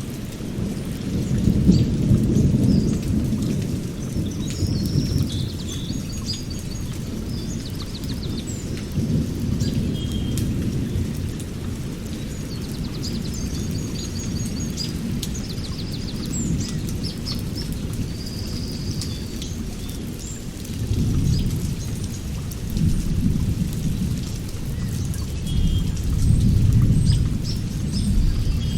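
Birds chirping and trilling over a low rumble that swells and fades several times.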